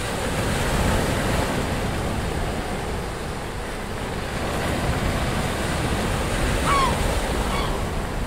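Sea surf and wind: a steady rush of breaking waves with wind on the microphone, and a brief high call about seven seconds in.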